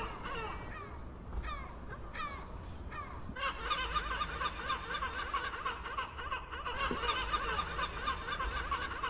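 A flock of gulls calling. A few separate calls come first, then many gulls call at once, overlapping in a dense chorus from about a third of the way in.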